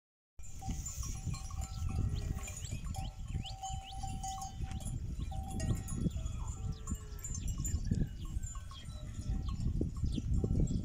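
Cowbells on a grazing herd of cattle ringing on and off, with short high chirps scattered through and a low rumble underneath.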